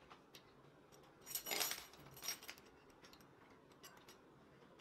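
Thin metal rod scraping and clinking against the steel pins of a bending jig as it is worked around them, with a louder rasping scrape about a second and a half in and a shorter one soon after, among small scattered clicks.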